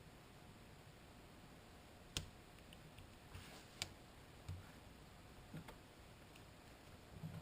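Faint handling noises as duct tape is applied to a homemade pouch: a few sharp clicks and soft taps spread through otherwise near silence.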